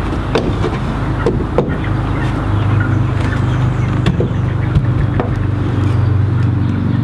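A steady engine hum, a little stronger after about two and a half seconds, with scattered light knocks and taps as a metal-framed door is worked into its opening.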